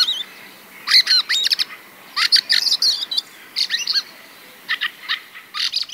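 Fieldfare singing: about five short bursts of squeaky, scratchy chatter mixed with harsh croaks, a second or so apart.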